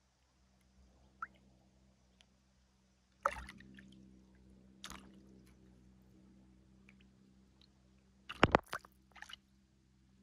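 Small splashes and plops in the water right by the microphone, in short sharp bursts: one about three seconds in, a lighter one a couple of seconds later, and a loud cluster of several near the end.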